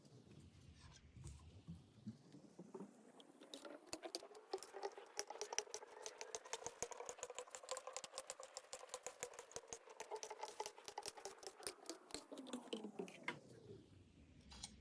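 Play-Doh being kneaded and squished by hand: a dense, irregular run of soft sticky clicks and crackles. Under it a faint tone slowly rises in pitch and then falls again near the end.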